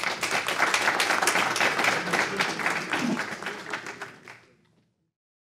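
Audience applauding. The clapping fades out about four and a half seconds in.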